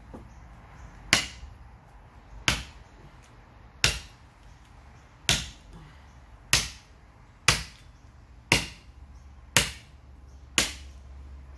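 A Derringer kukri chopping into an upright softwood stick: nine sharp wooden strikes, about one a second, coming a little faster toward the end.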